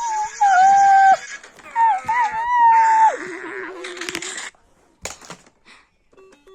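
Three long, high-pitched, wavering cries from a voice, the last one lower, then a few faint clicks.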